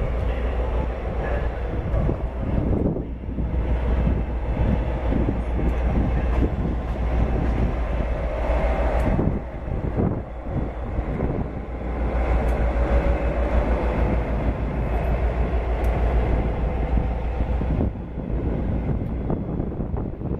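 Class 57 diesel-electric locomotive with its EMD two-stroke V12 running as it passes at low speed, its wheels knocking over rail joints and pointwork. The engine note dips briefly about halfway through and again near the end.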